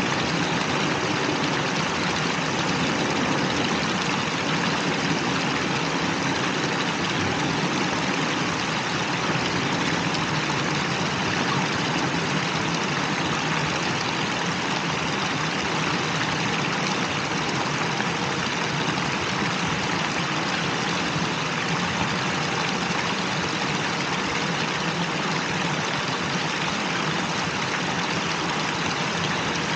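Small fountain jets splashing into a shallow pool, a steady even rush of water.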